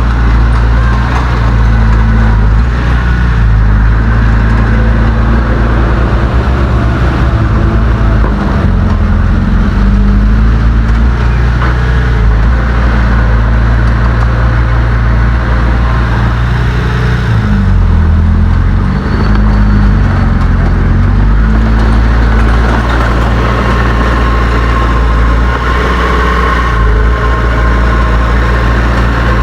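Heavy diesel engine of earthmoving machinery running loud and steady, its pitch dropping and rising a few times as the load changes, most of all past the middle.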